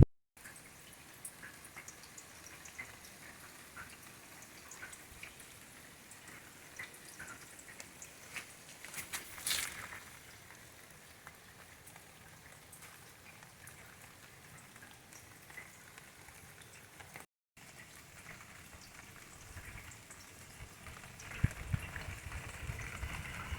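Faint scattered ticks and crackles over a low hiss, with one louder crackle about nine and a half seconds in; the sound drops out for an instant twice, and a low rustling rumble builds near the end.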